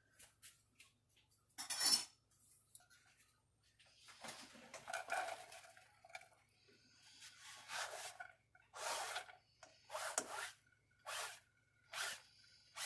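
Diced onion being shaken and knocked off a flexible plastic cutting mat into a stainless steel skillet. It makes a string of short scraping and tapping noises, coming about once a second in the second half.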